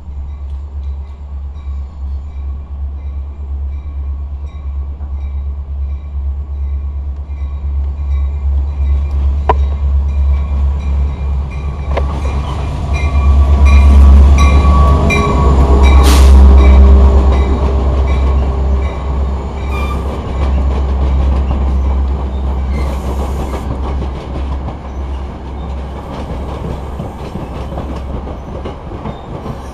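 Metra MP36PH-3S diesel locomotive passing close by, its low engine rumble building to its loudest about 13 to 17 seconds in. Bilevel passenger coaches then roll past, with a few sharp clanks of wheels on the rails.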